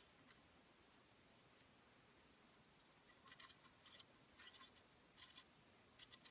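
Faint, light metallic clicks and scrapes in quick clusters from about three seconds in: a small Allen key turning in a set screw to back it out of a scout sight rail mount on a shotgun's rear sight block.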